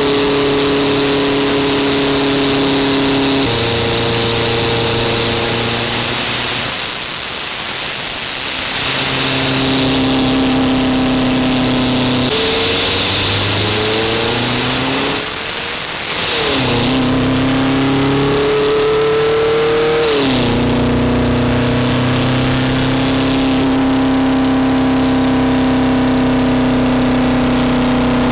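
VW Rabbit's 1.6-litre turbodiesel engine heard at the intake, accelerating through the gears: the engine note climbs, breaks off at the shifts and steps to a new pitch. A high thin whistle sounds twice as the engine note drops away, and the engine holds a steady note over the last third.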